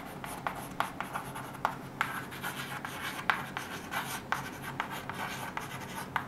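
Chalk writing on a chalkboard: a quick, irregular run of taps and short scratching strokes as words are written out.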